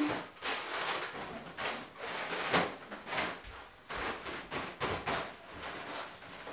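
Twisted latex modelling balloons squeaking and rubbing against each other and against hands as a balloon-flower arrangement is turned and adjusted, in a series of short irregular rubs.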